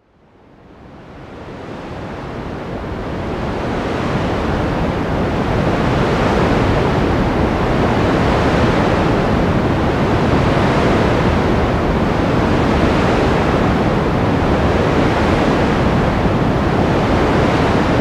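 Sea surf washing on the shore, a steady rush of waves that fades in over the first few seconds and then holds level.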